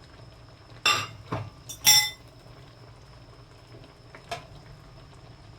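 Kitchenware clinking against a cooking pot or pan as the egg toppings go in. There are sharp clinks about a second in and again near two seconds, and a fainter one past four seconds, over a low, steady simmer.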